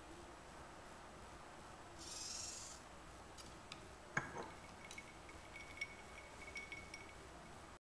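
Faint room tone with a short hiss of liquid trickling into a drinking glass about two seconds in, then a sharp clink of the glass as it is picked up about four seconds in, followed by a few light ticks and a faint steady high tone.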